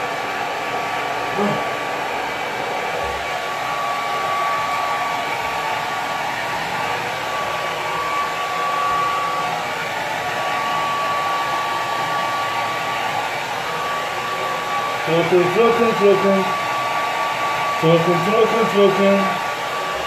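Handheld hair dryer running steadily, blowing air over a wet dog's coat: a constant rush of air with a thin steady whine. Over the last five seconds, short pitched sounds come in on top of it several times.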